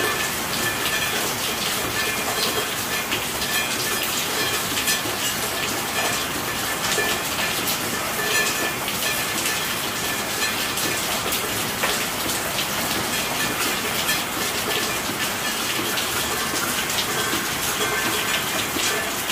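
Steady heavy rainfall: a dense, even patter of countless drops.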